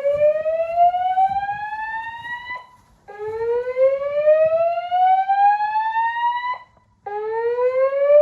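Fire alarm voice evacuation system sounding its whoop alert tone: a loud tone that sweeps slowly upward in pitch over about three and a half seconds, then breaks off briefly and starts again from the bottom. The break falls twice, about two and a half seconds in and just before the seven-second mark.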